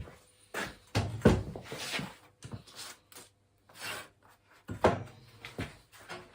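Irregular knocks and clunks of pergola parts being handled and fitted back into place. The loudest come a little after a second in and again near five seconds, with softer scraping between them.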